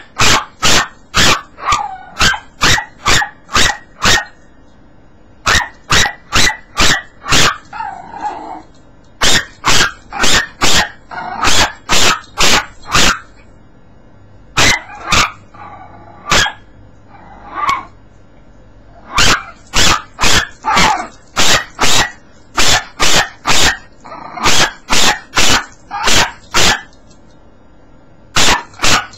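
Yorkshire terrier puppy barking over and over, sharp yaps about two a second in runs of several seconds with short pauses between.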